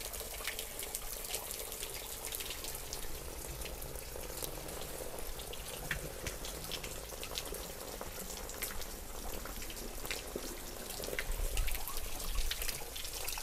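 Water trickling and splashing at a village spring water point, with many small drips and splashes over a steady run of water.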